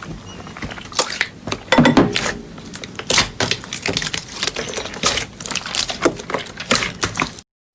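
Slime being squeezed and pressed by hand, an irregular run of clicks and pops that cuts off suddenly near the end.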